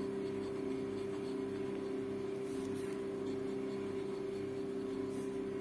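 Steel EF nib of a Hong Dian 5010 fountain pen writing on paper with a faint, light scratching. A steady low hum underneath is the loudest sound.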